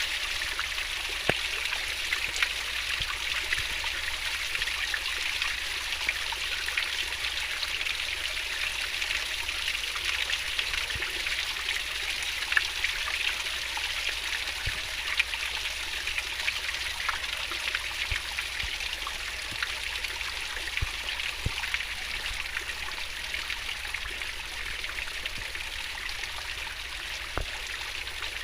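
Swift-flowing river stream babbling steadily, an even rush of water with small splashes now and then.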